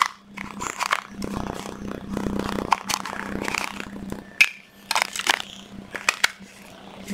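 Hard plastic casing of a 14.4V cordless-tool battery pack handled and turned over in the hands: rustling handling noise and a scatter of sharp clicks and knocks, thickest in the second half, over a low steady hum.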